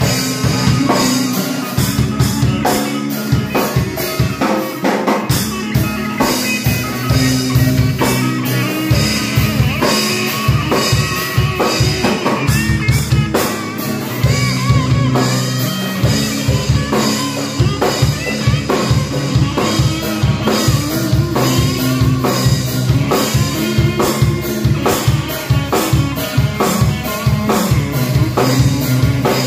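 A band playing live: a Premier drum kit beaten in a steady rock rhythm, with an electric guitar played through a small Fender combo amp.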